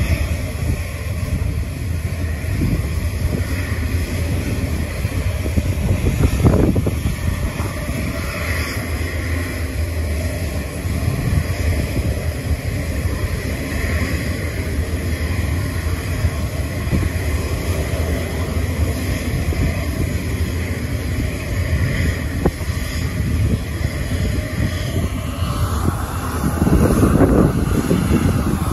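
Jet airliner's engines running as it moves along the runway, over a steady rumble of wind on the microphone. Near the end a rising whine builds into a louder rush of jet noise.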